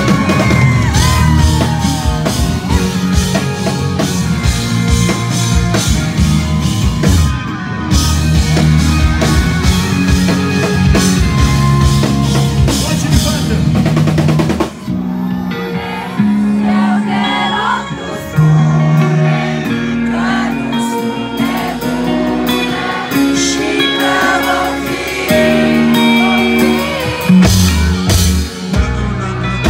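Live band playing through a PA: drum kit, keyboards and electric guitar with a singer's voice. A steady drum beat runs through the first half, then the drums drop out for held notes and vocals, and the drums come back in near the end.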